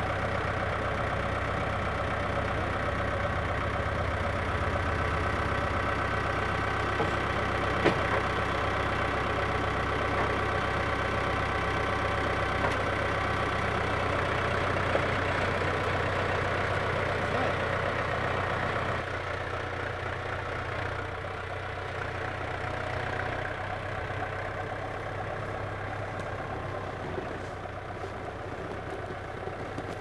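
Farm tractor's diesel engine idling steadily, with a few sharp knocks. The engine sound drops a little in level about two-thirds of the way through.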